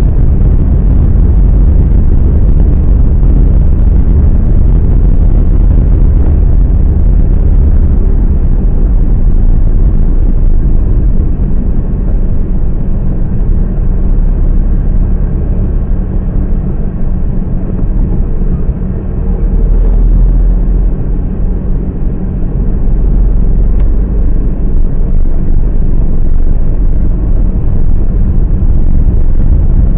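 Car interior driving noise: a steady, loud low rumble of engine and tyres on the road, heard from inside the cabin. It eases a little in the middle, then returns.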